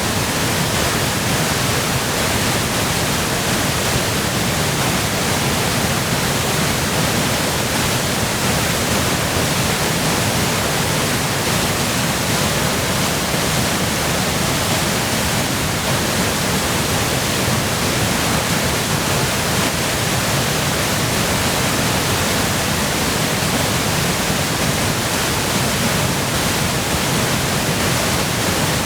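Waterfall in high flow from spring melt and heavy rain, a loud, steady rushing of falling water with no change throughout.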